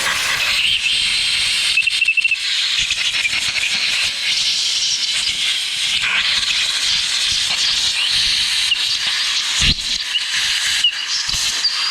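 Compressed-air blow gun hissing steadily as it blows out and dries a freshly washed engine case half.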